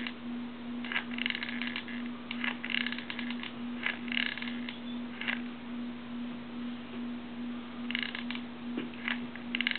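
Hot glue gun being worked, its trigger feed giving short bursts of rapid clicking several times over a steady electrical hum.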